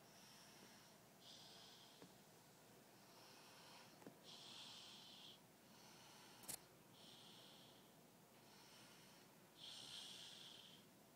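Small child snoring softly: hissing breaths that come and go every second or two, some stronger than others. A single faint click about six and a half seconds in.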